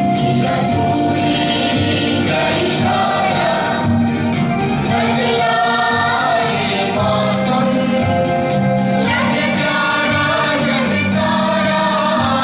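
A song sung with instrumental accompaniment, with long held vocal notes over a steady beat.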